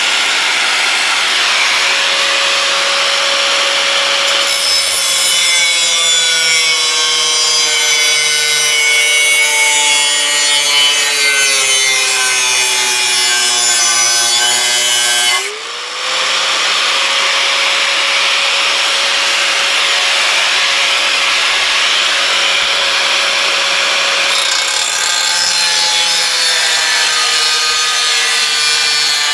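Electric angle grinder with a cut-off wheel cutting through sheet metal: a steady high motor whine that sags in pitch as the wheel bites into the metal. About halfway through it lets off briefly and spins back up, then sags again near the end.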